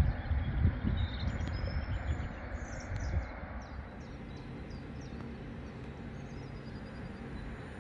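Railway station ambience: a low, uneven rumble for the first three seconds, then a steady quieter hum, with small birds chirping now and then.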